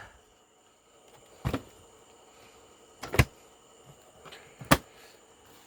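Sharp plastic knocks and clicks as the housing of a Kenmore Intuition upright vacuum is opened and shut by hand: three clear knocks about a second and a half apart, with a few fainter clicks between them.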